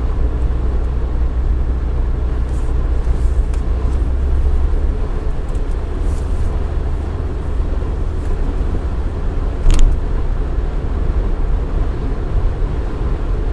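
Steady low rumble of road, tyre and engine noise heard inside a car cruising at about 80 km/h. There is one sharp knock about ten seconds in.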